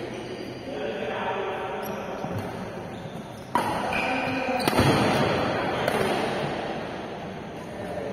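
Badminton rally: rackets striking the shuttlecock in sharp hits, the hardest a little under five seconds in, each hit echoing in a large hall. Players' voices come in the first couple of seconds.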